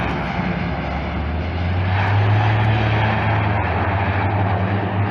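Beech 1900's twin Pratt & Whitney PT6A turboprops and propellers giving a steady drone as the aircraft rolls out after landing, with a low hum that grows stronger about two seconds in.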